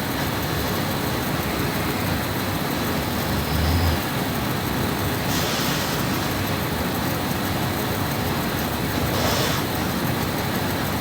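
A woman snoring in her sleep over a steady background hiss: one short low snore about three and a half seconds in, then two breathy exhales a few seconds apart.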